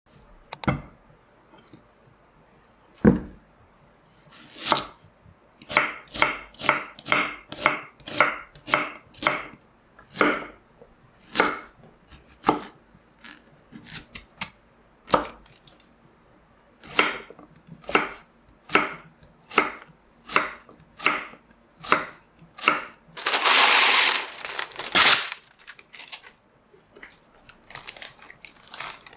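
Knife chopping food on a cutting board in a series of separate strokes, about one or two a second, with a longer noisy sound lasting about a second and a half near the end.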